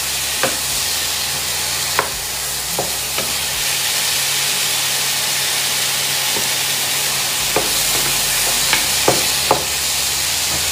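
Tomato chunks sizzling as they fry in a pan, stirred with a wooden spatula. The spatula knocks briefly against the pan a few times, most often near the end.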